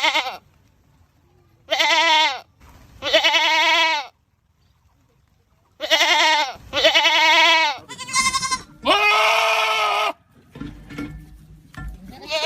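Goat screaming: a run of about six loud, drawn-out bleating calls in quick succession, one with a shaky, wavering tone. Fainter mixed noise follows near the end.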